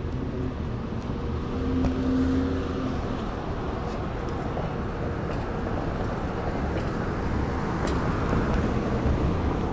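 Steady low rumble of wind and road noise on a chest-mounted camera riding an electric scooter, with a steady whine for the first few seconds and car traffic on the street.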